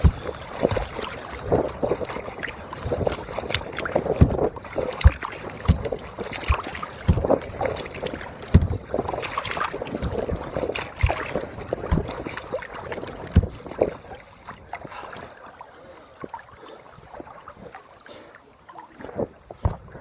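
Kayak paddling: the paddle blades splash and knock at irregular moments, about once a second. The strokes thin out and it goes quieter for the last several seconds.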